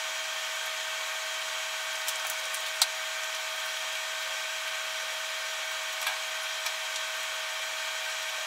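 A few sharp clicks and taps of a screwdriver working the stiff chain tensioner screw in a plastic chainsaw side cover, over a steady high hum.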